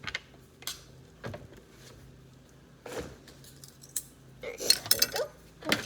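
Spoons clinking and knocking against bowls and containers as slime ingredients are handled: scattered single clicks, then a quicker run of sharper knocks near the end.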